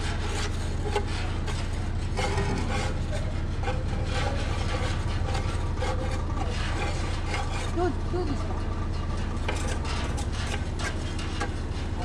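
Mini excavator's diesel engine running steadily, with repeated gritty scraping of soil and gravel.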